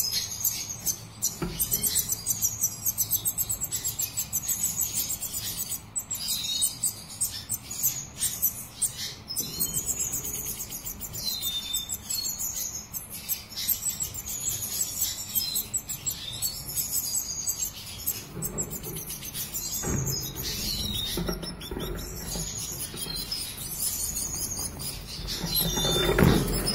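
Black siskin twittering in quick, high chirps and short trills throughout. Near the end comes a loud flutter of its wings as it takes off.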